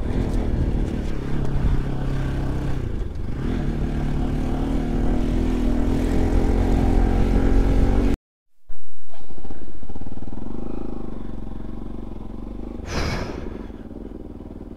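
Motorcycle engine running as the bike is ridden, its pitch shifting up and down with the throttle, under wind and road noise. About eight seconds in the sound cuts out for half a second, then comes back quieter and slowly fades.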